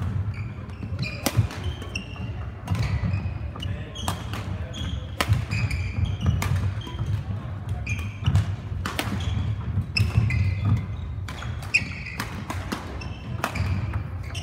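Badminton rally: sharp racket strikes on a shuttlecock, irregularly spaced, with short high squeaks of shoes on the court floor, echoing in a large sports hall.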